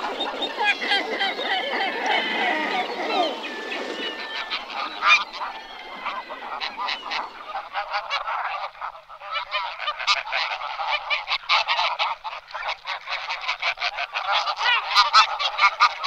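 A large flock of waterbirds calling, with many short calls overlapping throughout.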